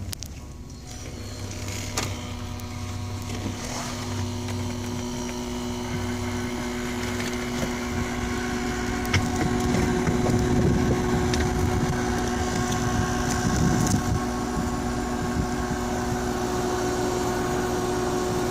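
Midea window air conditioner, run from a power inverter, starting up about a second in: a steady hum from its compressor and fan that slowly grows louder, over the van's idling engine, with a few sharp clicks.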